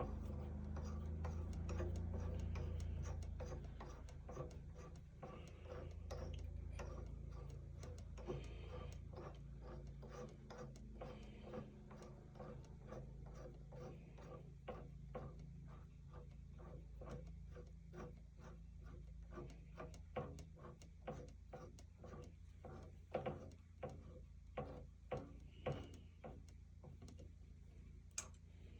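Drill press running, a steady low hum, with quick light ticks about two or three times a second while it works a hole in a solid aluminium handwheel.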